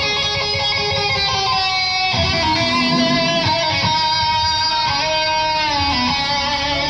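Guitar-led music with held chords that change about two seconds in and again a few seconds later.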